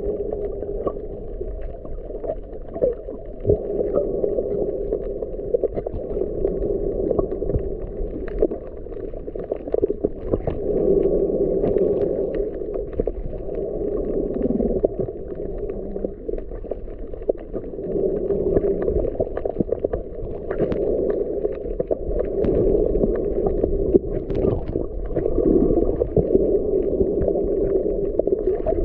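Muffled underwater water noise from a snorkeler drifting over a reef: a steady low churning that swells and fades, with scattered faint clicks and crackles.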